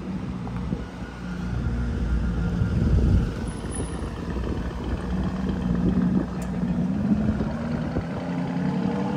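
Road traffic: car engines running and passing close by, loudest about three seconds in with a low rumble, then a steadier engine hum.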